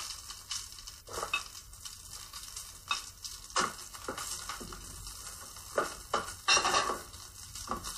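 Wooden spoon stirring sliced onions and curry leaves in hot oil in an enamel pot, with irregular scraping strokes against the pot over a light sizzle.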